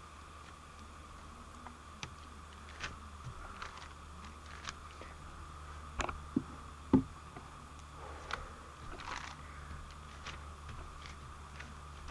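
Faint wet squelches and clicks from slime being squeezed out of a plastic bottle and handled, over a steady low hum. Two sharper knocks come about six and seven seconds in, as the phone is bumped.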